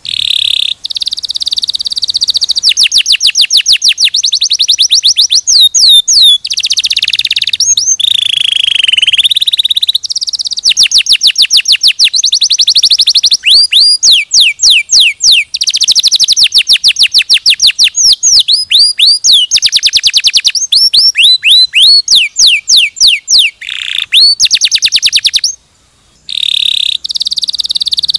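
Domestic canary singing a long, loud song of fast trills and rapidly repeated high notes, broken into phrases by short pauses, one of about a second near the end.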